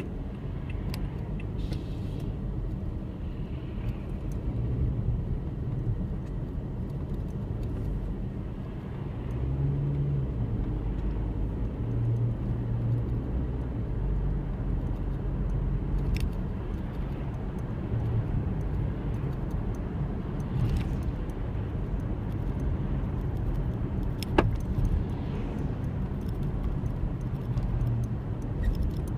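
Steady low rumble of a car in motion, with a few faint clicks and light jingling.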